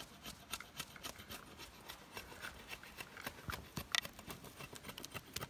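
A knife and a hatchet blade shaving bark and wood off a peeled walking stick, in a quick, irregular series of short scraping strokes.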